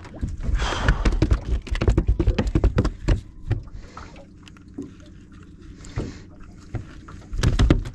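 Rapid, irregular knocks and clatter in a small fishing boat. They ease off for a few seconds in the middle and pick up again near the end.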